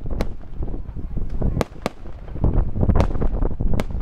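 Fireworks display: aerial shells bursting with several sharp bangs and crackles over a steady low rumble.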